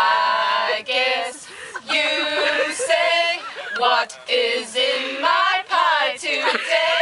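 A small group of women singing a home-made song together, unaccompanied, in short sung phrases with brief breaks between them.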